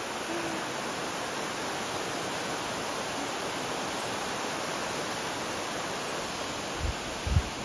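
Shallow rocky river rushing over stones in small rapids: a steady, even rush of water. A few low thumps near the end.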